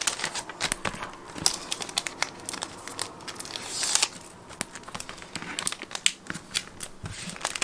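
Clear plastic packing sleeve crinkling and rustling as it is handled and smoothed over a sheet of grey board, with many small crackles and taps and a longer rustle about four seconds in.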